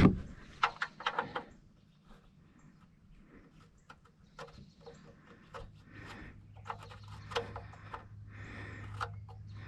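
Faint scattered clicks and light scrapes of a drain plug being worked by hand into an oil pan's threads, the plug not catching cleanly. A low steady hum comes in about halfway.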